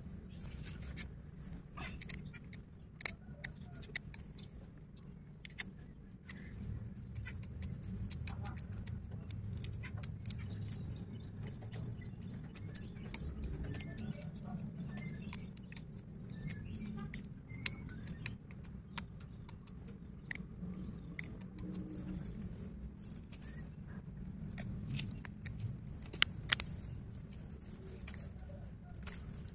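Scattered small clicks and scrapes of a craft knife cutting plastic binding strips and knocking against bonsai wire wrapped around a ficus bonsai's roots, over a steady low hum.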